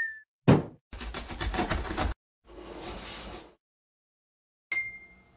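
Cartoon sound effects. A sharp thud comes about half a second in, followed by about a second of rapid rattling and a softer whooshing hiss. Near the end there is a short bright chime that rings briefly and fades.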